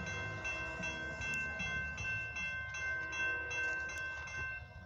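Railroad crossing warning bells ringing in a steady repeating pattern as the crossing gates lower for an approaching train, falling silent shortly before the end once the gates are down.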